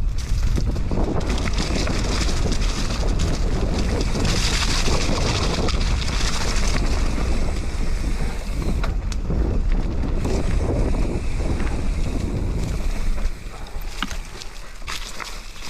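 Mountain bike ride with wind buffeting the action camera's microphone as a heavy rumble, over a steady rush of river water and scattered sharp clicks and rattles from the bike. The rumble drops off about thirteen seconds in.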